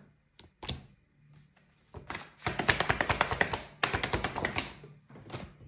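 Tarot cards being shuffled by hand: a couple of soft taps, then two quick runs of rapid card clicks, each about a second long.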